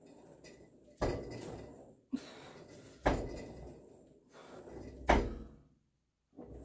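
Cable weight stack of a Marcy MWM-990 home gym clanking as the plates drop back together on each rep: three knocks about two seconds apart, each followed by a short rattle.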